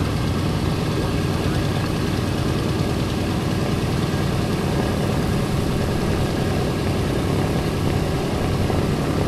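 Wright R-1820 Cyclone nine-cylinder radial engines of a Boeing B-17G Flying Fortress idling steadily after start-up, a low, uneven throb with a constant hum beneath.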